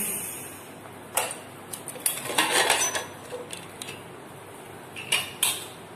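Pressure cooker being opened: sharp metal clicks and knocks as the whistle weight is lifted off and the lid is worked free, with a rush of noise lasting about a second, two seconds in.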